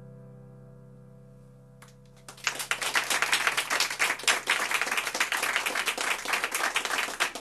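The song's last held keyboard chord fades out. About two and a half seconds in, the audience breaks into applause that carries on steadily.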